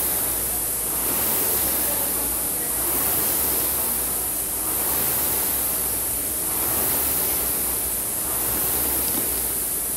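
Air rowing machine's fan flywheel whooshing steadily, swelling with each drive stroke about every two seconds.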